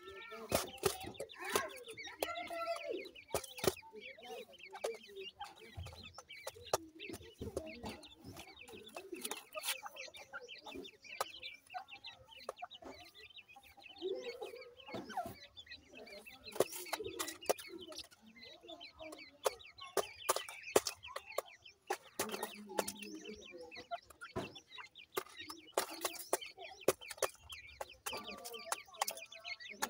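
Francolin (teetar) chicks calling over and over in short chirps and peeps, with frequent sharp clicks and taps among the calls.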